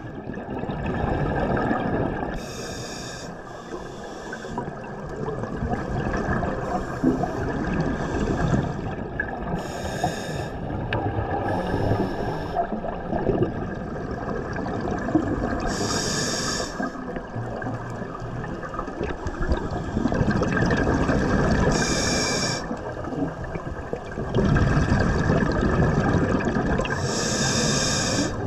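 Scuba diver breathing through a regulator underwater: a short hissing inhale every few seconds, then a longer bubbling of exhaled air.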